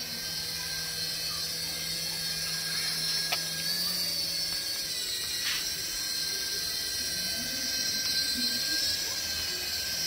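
HX708 toy RC helicopter's small electric motors and coaxial twin rotors whining steadily in a high pitch as it hovers. The pitch dips briefly around five seconds in, and there is one sharp click a little after three seconds.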